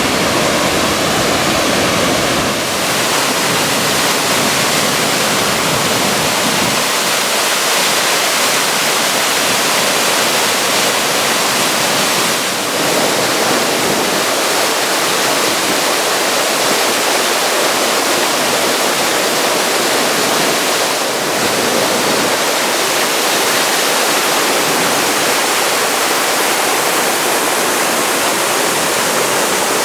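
Loud, steady rushing of a mountain waterfall, an even torrent of water with small shifts in its tone a few times.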